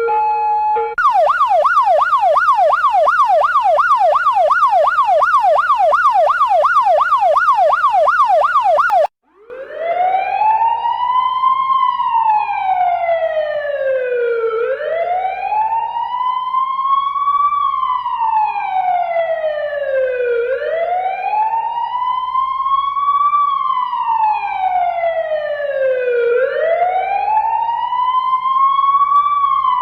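Electronic police car siren in a fast yelp, its pitch sweeping up and down about four times a second. It cuts out briefly about nine seconds in, then comes back as a slow wail, rising and falling about every six seconds.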